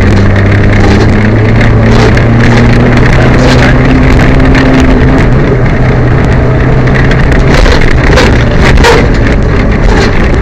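Peugeot 205 rally car's engine heard from inside the cabin, pulling hard on a stage, its note climbing over the first few seconds; the engine has a misfire. Several sharp knocks from the car come a little past the middle.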